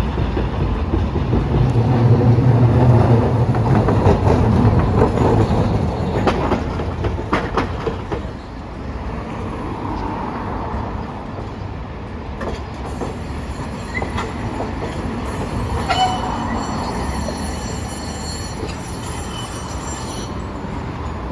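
Hiroshima Electric Railway streetcar passing close by, its running gear rumbling loudest in the first few seconds, with wheels clicking over rail joints around six to seven seconds in. Afterwards a quieter steady rumble with faint high-pitched whine in the latter half.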